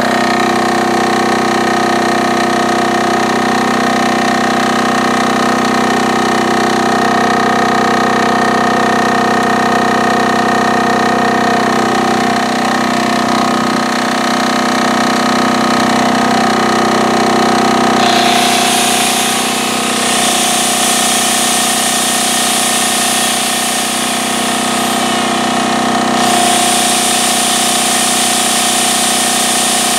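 2 kW military diesel generator set running steadily under load. About two-thirds of the way in, an electric angle grinder powered from it starts up with a high whine, which eases off briefly and starts up again a few seconds before the end.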